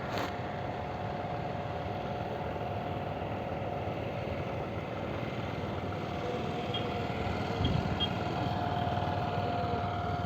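A houseboat's engine running steadily, heard on board as a constant hum with a steady whine.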